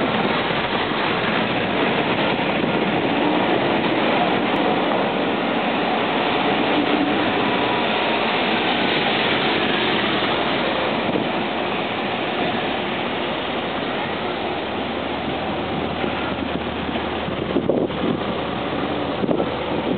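A line of Porsche cars, including a 911 and a Cayenne, driving slowly past one after another: steady engine and tyre noise with faint shifting engine notes, and a few short knocks near the end.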